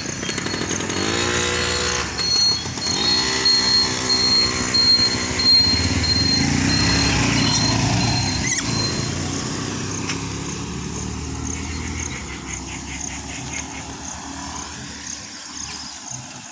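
Motor vehicles passing close by, their engines speeding up with a rising pitch about a second in and again about three seconds in. The traffic sound then fades slowly over the last several seconds.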